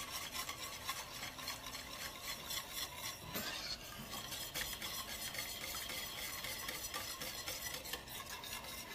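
Metal wire whisk stirring a thick mixture of mashed ube and milk in a stainless steel pan, a fast, even scraping and clicking of the wires against the pan. The mixture is warming up on the burner but is not yet boiling.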